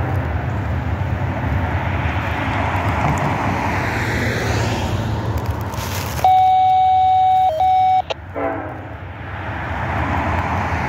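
Road traffic passing on a street, a steady rush of tyre noise that swells as cars go by. About six seconds in, a loud steady electronic beep sounds for nearly two seconds and masks everything else. Traffic noise then returns.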